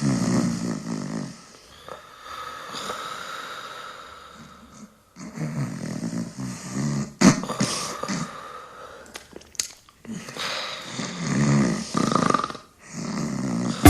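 Snoring sound effect: a run of about five long, rasping snores, each a second or two long, with a few sharp clicks around the middle.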